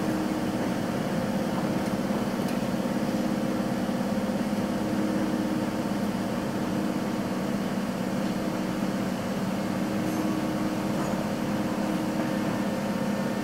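Steady hum inside a moving passenger train carriage, the running noise of the train mixed with its air conditioning, with a few low droning tones that stay even throughout.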